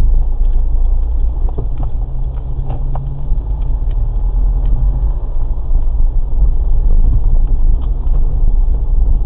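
Car engine and road rumble heard through a dashcam inside the cabin, a loud, steady low rumble as the car slows to a crawl through a turn and pulls away again.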